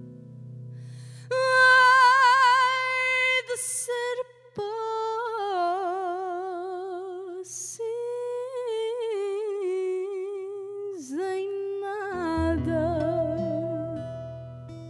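Fado sung by a woman in slow, long-held phrases with a wide vibrato, broken by three quick breaths, over a quiet string trio of Portuguese guitar, fado viola and acoustic bass, with low bass notes underneath.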